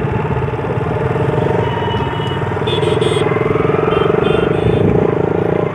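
Motorcycle engine running steadily under way, with an even pulse. A few brief high-pitched tones sound about three and four seconds in.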